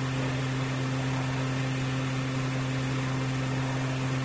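Steady low hum with an even hiss over it, the background noise of the sermon recording during a pause in the speech.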